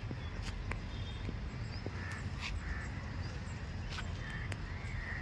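Birds calling in short, repeated calls over a steady low rumble, with a few sharp clicks in between.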